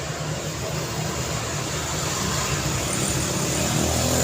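City road traffic: the steady tyre and engine noise of passing cars, with one vehicle's low engine note growing louder near the end.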